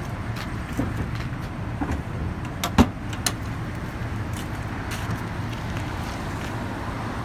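The small SCBA bottle compartment door on a fire engine's body is pushed shut: a couple of light latch clicks and one sharp clack about three seconds in, over a steady low rumble.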